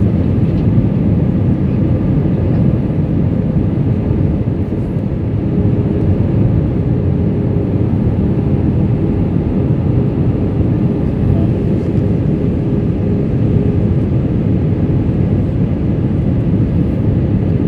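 Steady drone of an airliner in flight heard inside the passenger cabin: engine and airflow noise, low and even, with a faint steady hum.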